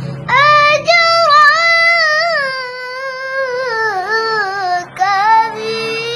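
A young boy chanting Quran recitation (tilawah) in Arabic, one high voice drawing out a long melodic phrase with held, wavering, ornamented notes. There is a short break for breath about five seconds in.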